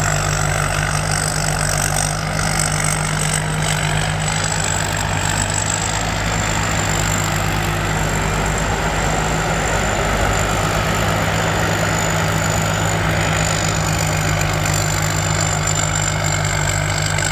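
Rice combine harvester running steadily at work, its engine and machinery making a constant drone with a thin, steady high whine on top.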